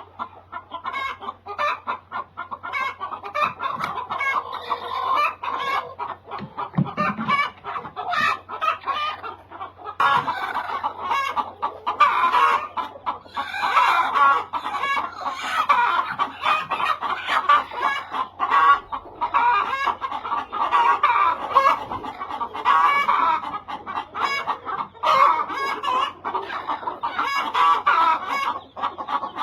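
A flock of laying hens clucking, many birds calling over one another without pause; it grows louder about a third of the way in.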